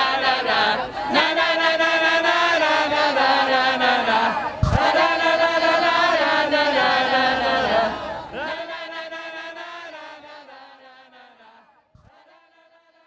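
A crowd of strikers chanting a slogan in unison, many voices held together. There is a single thump about halfway through, and the chant then fades out gradually over the last few seconds.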